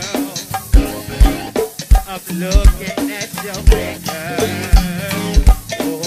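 Go-go band music: a drum kit drives the beat with deep kick-drum hits and snare cracks, and pitched instrument or voice parts run over it.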